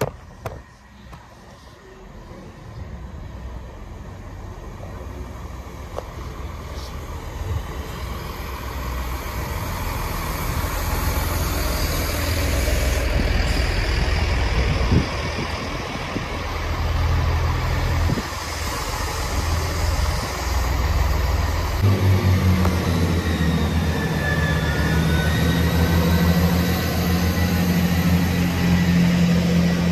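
Chiltern Railways diesel multiple unit approaching and pulling into the platform. The sound of its engines and its wheels on the rails grows steadily louder, then settles into a steady engine note about two-thirds of the way in as it slows, with a faint high squeal.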